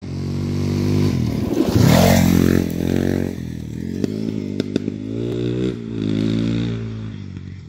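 Dirt bike passing close by at speed, loudest about two seconds in, then accelerating away up through several gear shifts, its engine note rising with each gear and fading with distance.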